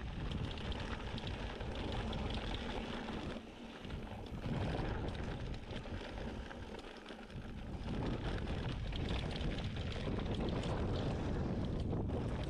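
Wind buffeting the camera microphone over the rattle and crunch of a mountain bike's tyres rolling down a rocky dirt trail, with two short quieter spells.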